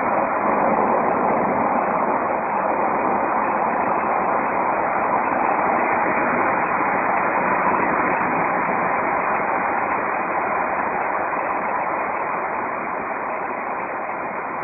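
Steady rushing roar of a Jeep Grand Cherokee SRT8 cruising through a road tunnel: tyre, wind and exhaust noise echoing off the tunnel walls, with no distinct engine note. It eases slightly toward the end.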